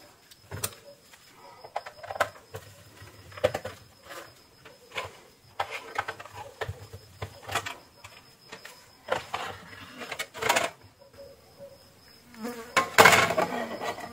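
Screwdriver turning out the screws that hold an LED board in a plastic ceiling-light housing: irregular short scrapes and clicks, then louder rattling and knocking near the end as the board is lifted off.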